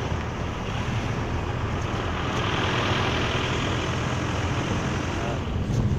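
Car moving along a snowy road: a steady low rumble of tyres and engine under a rushing noise that swells about halfway through.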